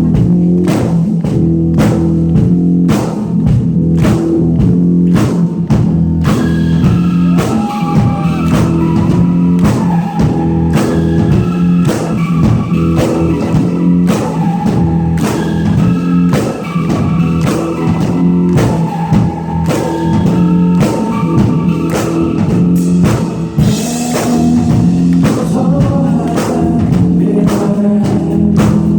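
Rock band playing live at full volume: a drum kit beating a steady rhythm under bass and guitars, with a singer's held, bending notes.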